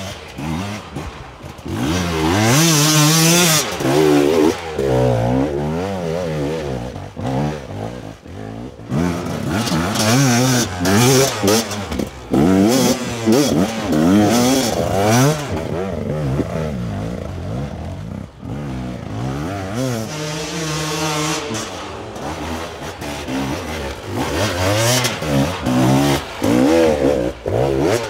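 Two-stroke enduro dirt bike engines revving hard in repeated rising and falling bursts as the bikes claw up steep, rough climbs, with brief lulls between bursts.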